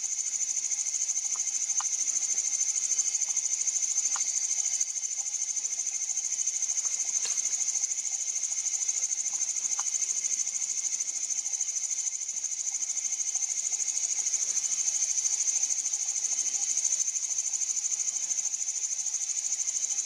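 A steady, high-pitched chorus of night insects, crickets by the sound of it, running unbroken, with a few faint short ticks over it.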